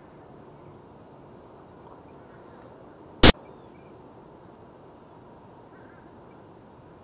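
One sharp, loud click about three seconds in, over a faint, steady background hiss.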